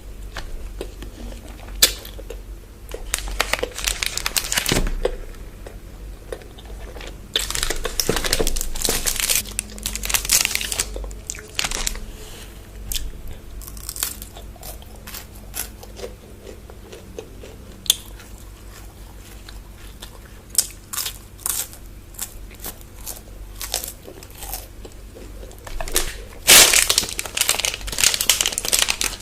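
Close-miked eating of chocolate bars: wrapper crinkling with crunchy bites and chewing, in crackly bursts, loudest near the end.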